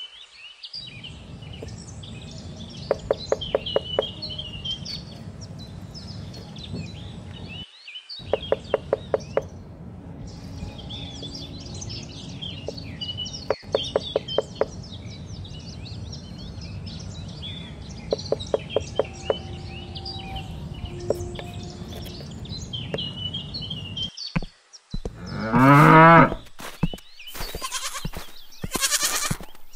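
Farmyard ambience: birds chirping throughout over a steady low background, with short, pulsing livestock calls every few seconds and a louder rising animal call near the end.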